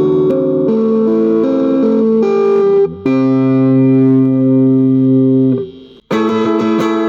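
Mexican Fender Stratocaster played with the fingers through a Hotone Pulze Mini amplifier. A run of changing notes leads into a chord held for a couple of seconds, which fades and stops about six seconds in. A new chord then comes in, picked in a quick repeating rhythm.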